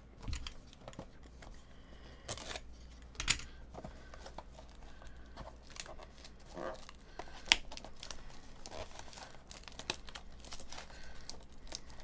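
A small cardboard trading-card box being opened with a box cutter: its plastic wrap crinkles and tears, with irregular crackling and a few sharp snaps and clicks.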